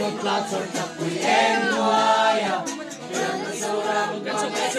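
A group of young voices singing together without instruments, with long held notes.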